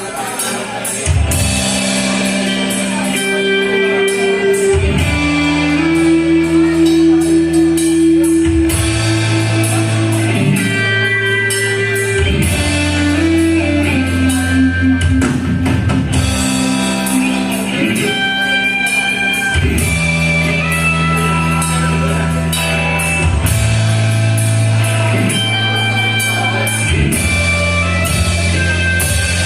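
A rock band playing the instrumental intro of a song: guitar and drum kit with cymbals over held low notes that change every few seconds.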